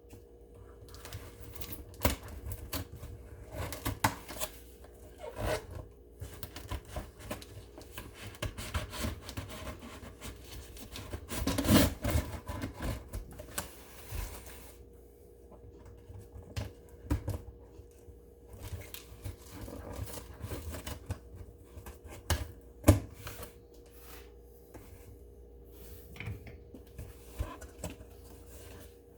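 Hands unboxing a parcel: a cardboard box and its packing handled, with irregular rustling, scraping and clicks, the busiest stretch near the middle and one sharp knock later on. A faint steady hum runs underneath.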